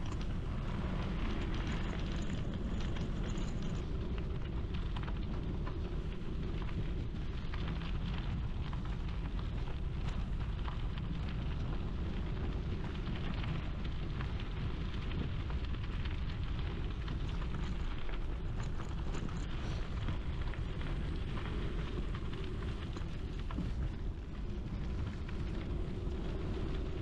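Steady wind buffeting on the microphone, mixed with tyre rumble from a gravel bike riding at speed on a dirt and gravel trail.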